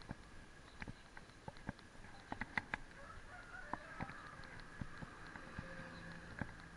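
Mountain bike rolling downhill on an asphalt road, its chain and frame rattling with irregular sharp clicks and knocks over the bumps.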